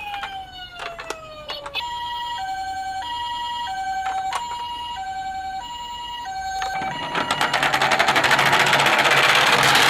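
Toy ambulance minicar's electronic siren: a brief falling tone, then the two-note hi-lo ambulance siren alternating steadily about five times. About two-thirds of the way through, a rapid mechanical clicking whir takes over and grows louder.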